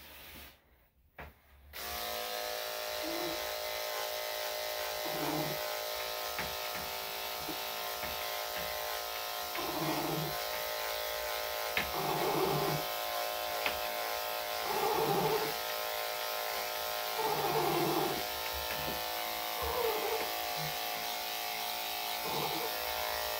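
Electric dog grooming clippers fitted with a #10 blade, switched on about two seconds in and then buzzing steadily while trimming the inside of a dog's front leg. The buzz swells briefly about every two to three seconds.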